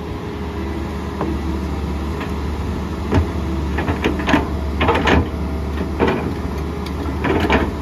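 Excavator diesel engine running steadily under load while its bucket dumps wet clay into a steel hopper: from about three seconds in, a run of thuds and clatters as the clay drops and scrapes in.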